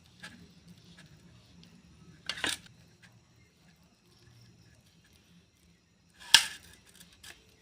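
Kitchen items being handled: two short knocks or scrapes, the second about four seconds after the first and louder, with a few faint clicks between.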